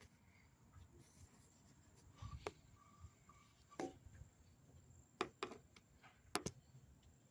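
Near silence broken by a handful of faint, sharp clicks and taps at irregular intervals, the loudest a close pair near the end.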